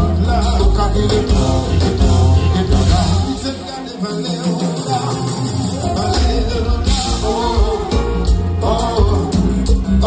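Live konpa band playing, with a male voice singing over electric guitar, keyboards, bass and drums. The bass and kick drum drop out for about two seconds a few seconds in, then come back in.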